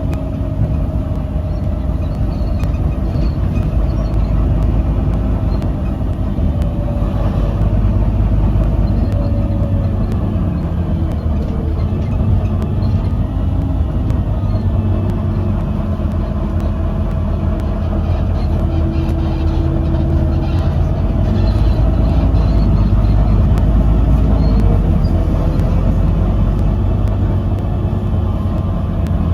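Onboard sound of a Volvo B9TL double-decker bus under way: the steady low rumble of its diesel engine, with a whine held throughout and shorter tones that rise and fall as its speed changes.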